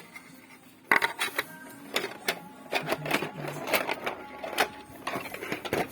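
Irregular clicks, knocks and rattles of a parcel's broken contents and packaging being handled and turned over.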